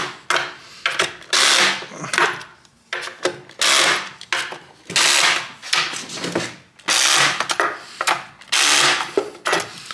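Black+Decker cordless drill spinning a universal socket adapter in a series of short bursts, about one to two seconds apart, as it tightens the nuts holding a wobbly furniture leg.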